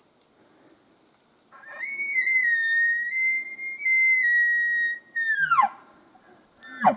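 Elk bugle call blown through a bugle tube, imitating a rocky mountain bull elk: a high, whistling bugle about a second and a half in, held for about three and a half seconds, then sliding steeply down. It is a locating bugle, meant to draw an answering bugle from a bull.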